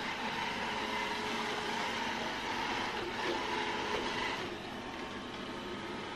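Dreame F9 robot vacuum running as it drives back to its charging dock: a steady motor hiss with a faint steady hum, easing a little about four and a half seconds in.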